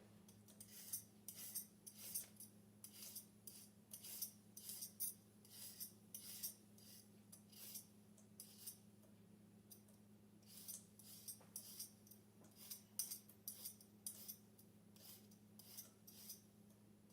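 Vegetable peeler scraping down raw carrots in quick, faint strokes, about two a second, with a pause of a couple of seconds midway.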